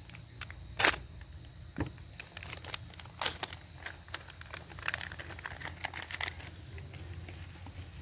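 Clear plastic parts bag crinkling and crackling as it is handled and opened, in irregular bursts of crackles with the sharpest about a second in and another flurry between about five and six seconds.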